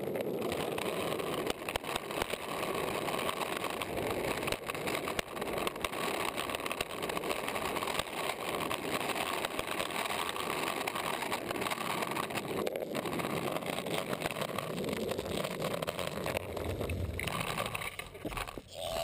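Longboard wheels rolling fast over asphalt, picked up by a camera mounted on the board's deck: a steady rolling rumble and hiss, with many small clicks from the rough road surface and seams.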